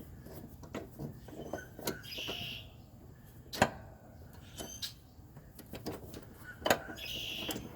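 Two-jaw gear puller being worked against a rusted-on lawn mower blade adapter: metal tools clinking and knocking, with two short scraping passes and a few sharp metallic knocks, the loudest about three and a half seconds in and near the end.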